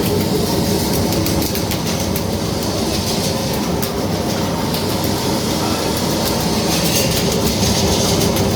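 Electric-pole rebar cage welding machine running: a loud, steady mechanical drone with many quick, irregular clicks over it.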